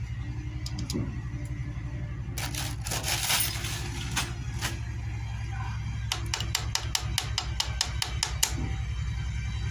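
Sharp metallic clicks and clinks of tools and engine parts being handled during a motorcycle engine teardown, with a quick run of about four clicks a second in the second half, over a steady low hum.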